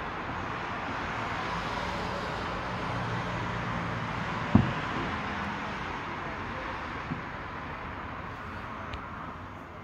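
Steady hiss of city traffic, with a dull thump about halfway through and a fainter one a couple of seconds later: the booms of distant fireworks.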